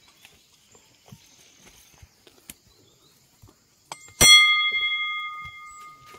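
A metal temple bell struck once about four seconds in, ringing with several clear tones that fade away over about two seconds. Before it there are only faint scattered clicks and knocks.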